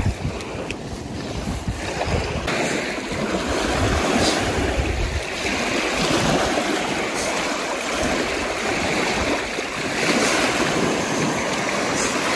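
Small lake waves washing and breaking on the shore, a steady rush of surf. Wind buffets the microphone now and then.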